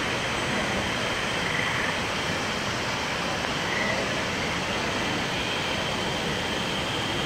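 Steady rushing of water from the man-made waterfalls cascading down the rockwork of the Mirage volcano.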